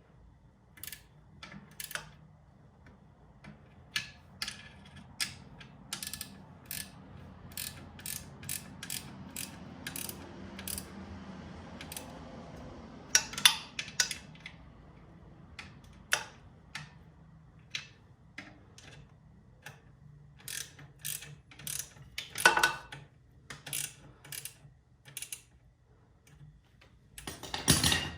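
Sharp, irregular metal clicks of a 13 mm wrench and a pry bar working on a motorcycle alternator mount, as the alternator is levered against the engine casing to tension its belt and its bolts are tightened. Louder bursts of clicking come about halfway through, again a little later, and near the end.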